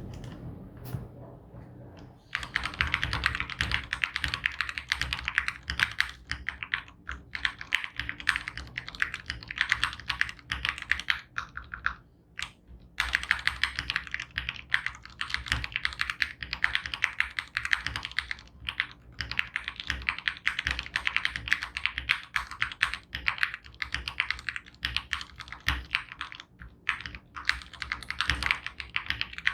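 Typing on an Akko ACR67 mechanical keyboard with lubed Gateron Milky Yellow linear switches, a tempest mod and XDA-profile keycaps: a fast, continuous run of keystrokes. The typing starts about two seconds in and breaks off briefly about twelve seconds in.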